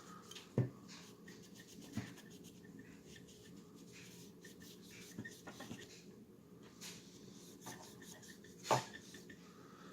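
Faint rubbing of a dry cleaning patch on a pistol slide, with a few light knocks of the parts being handled; the loudest knock comes near the end.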